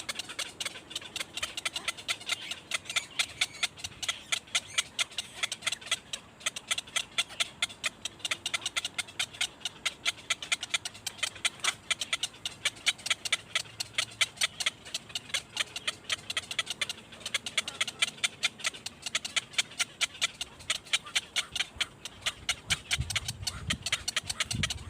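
Baby birds cheeping in a fast, even series of short high calls, about five a second, with a few low thumps near the end.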